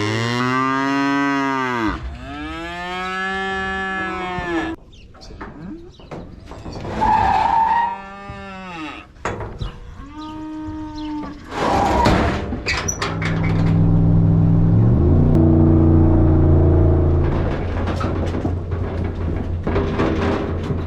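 Dairy cattle mooing, a run of about five calls whose pitch rises and falls, followed by a long, low, steady moo in the second half.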